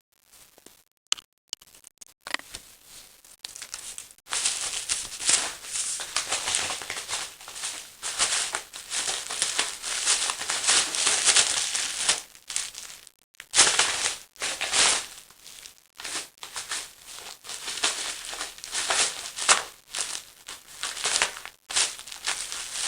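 A paper napkin-bag cat lure dragged and pounced on across bubble wrap: crinkling and rustling in irregular bursts, with brief pauses about 13 and 16 seconds in.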